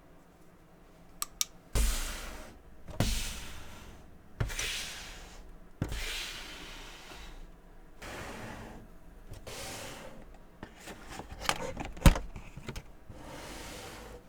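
Funko Pop cardboard box with plastic window being handled: a string of rustling, sliding scrapes, each about a second long, with light clicks. A sharp knock about twelve seconds in is the loudest sound.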